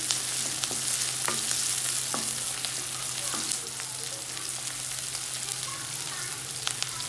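Sliced onions sizzling in hot oil in a metal kadai, being lightly sautéed while a wooden spatula stirs them, scraping and tapping the pan every second or so.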